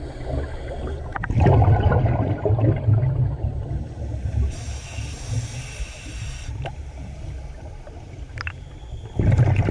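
Scuba diver's breathing heard underwater through a camera's dive housing, over a low rumble: a long burst of exhaled bubbles from the regulator, a hissing inhalation a few seconds later, and more bubbles starting near the end.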